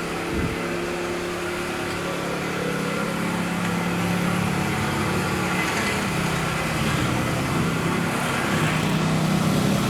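A motor or engine running steadily, a low hum that grows slowly louder.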